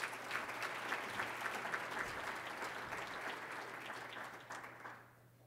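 Audience applauding a speaker's introduction, dying away near the end.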